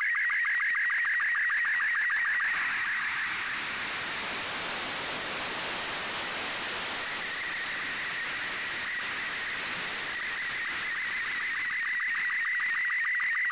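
Slow-scan TV (SSTV) picture signal from the LAPAN-A2 (IO-86) satellite's FM downlink, received on a software-defined radio: rapidly pulsing scan tones near 2 kHz. About two and a half seconds in, the signal fades into steady FM receiver hiss as its strength drops, and the scan tones come back near the end.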